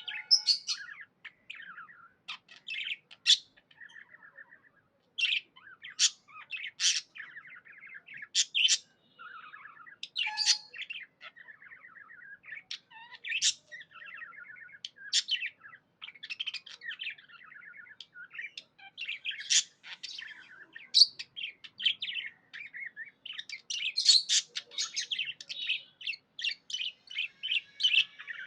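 Budgies chirping and warbling: a steady twittering chatter broken by frequent sharp, high chirps, busiest near the end.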